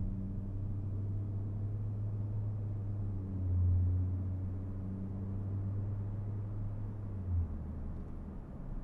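Ford Fusion Sport's 3.5-litre V6, its two rear mufflers deleted, heard inside the cabin during ordinary driving: a steady low exhaust tone that swells briefly about three and a half seconds in and settles slightly lower near the end.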